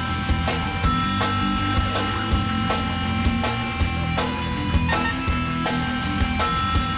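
Rock music soundtrack with electric guitar and a drum kit keeping a steady beat of about two hits a second.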